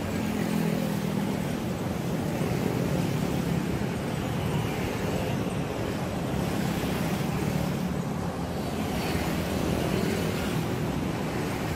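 Steady road traffic at a railway level crossing: a continuous rumble of passing vehicle engines and tyres.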